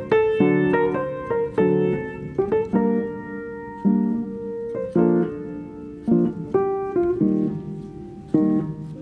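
Background piano music: notes and chords struck one after another, each fading out.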